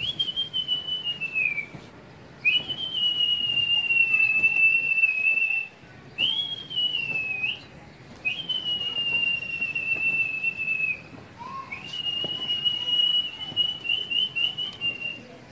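A person whistling five long, steady, high notes in a row with short gaps, each dropping in pitch at its end. This is the pigeon flyer's whistle used to keep a flock of fancy pigeons circling.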